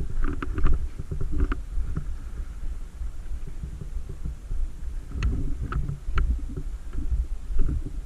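Uneven low rumble of wind and movement on a body-worn camera's microphone, with a few short, sharp clicks early on and again around five to six seconds in.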